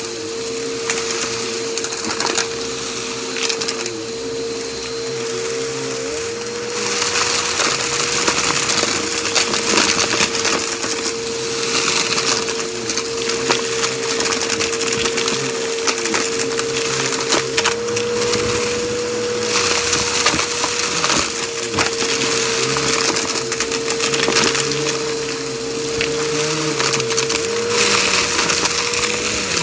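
Bissell PowerForce upright vacuum running with a steady motor whine while its brushroll sucks up a pile of dry debris, lint, dried leaves and seeds, crackling and rattling through the nozzle. The crackle gets louder about six seconds in as the nozzle moves into the pile.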